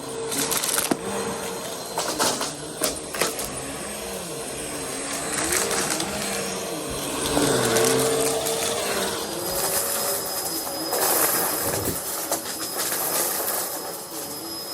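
Vacuum cleaner running, its motor pitch wavering up and down over a steady hum, with several clicks in the first three seconds.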